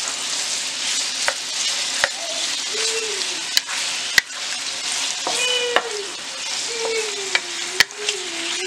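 Marinated boneless chicken pieces sizzling in hot oil in a nonstick wok as they are stirred with a wooden spatula, with a few sharp taps of the spatula knocking against the pan.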